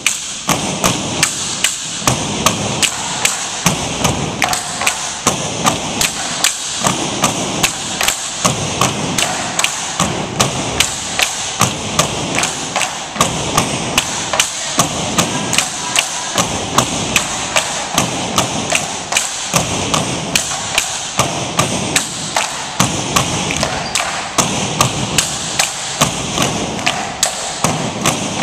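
Tinikling poles being tapped on the floor boards and knocked together in a steady, even rhythm of about two to three knocks a second.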